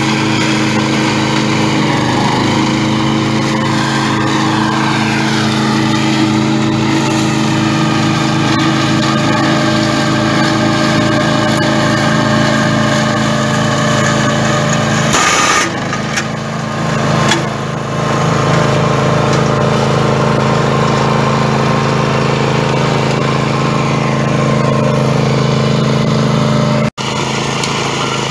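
BCS 740 Power Safe two-wheel tractor's engine running steadily, driving a front-mounted vegetation shredder through tall grass and weeds. There is a brief loud rush of noise about halfway through. Near the end the sound breaks off for an instant.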